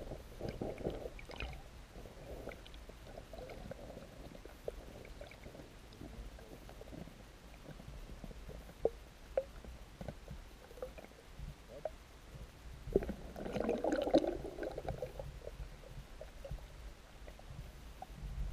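Underwater sound heard through an action camera's waterproof housing: a muffled low rumble of water with scattered small clicks and ticks, swelling into a louder muffled swish about 13 seconds in.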